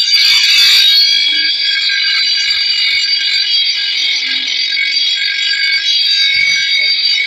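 Steel blade of a long bolo being ground on the spinning abrasive wheel of an electric grinder to sharpen it: a loud, steady, high-pitched screech of metal against the wheel.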